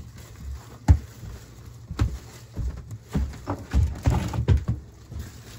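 Footsteps thumping unevenly on a boat cabin's floor, a man walking while carrying a plastic garbage bag, with the bag rustling in the middle of the run of steps.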